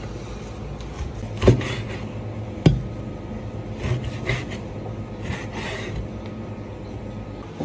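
Cleaver cutting beef shank into big chunks on a plastic cutting board: two sharp knocks of the blade on the board a little over a second apart, then softer scraping and rasping as the blade slices through the meat.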